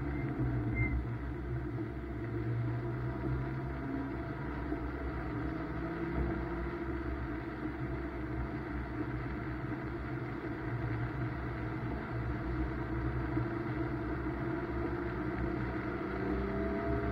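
BMW M2's turbocharged straight-six engine running at a steady, moderate pull under road and tyre noise. Its note drifts slowly up and down in pitch and climbs again near the end.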